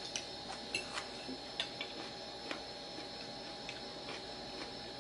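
Light clinks of a metal fork and spoon against a bowl while eating: several small irregular taps in the first half, then only a couple of faint ones, over a faint steady hum.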